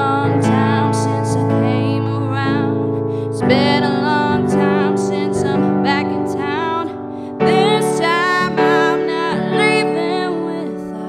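A woman singing a slow soul ballad with vibrato over sustained piano-voiced chords played on a Yamaha MX88 keyboard, in phrases with short breaks between them.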